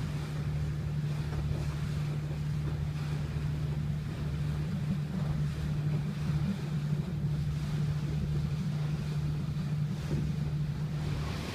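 The towboat's diesel engine pushing the car ferry runs at a steady low drone that holds one pitch throughout.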